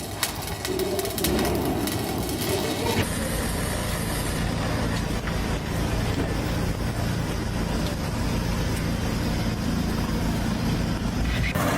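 Steady din of running machinery with a low engine hum.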